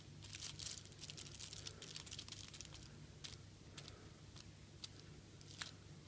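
Faint scraping and light ticking of two-component epoxy glue being stirred and mixed by hand, busiest in the first couple of seconds, then scattered ticks.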